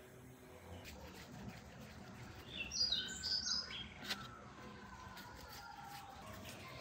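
A small songbird chirping, a quick run of short high notes about three seconds in, over faint garden background noise, with a single faint click about four seconds in.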